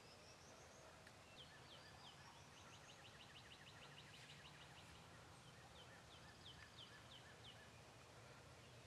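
Faint birdsong: a rising series of high whistles, then a fast trill of short high notes lasting a couple of seconds, then a few slower high notes, over a faint low background hum.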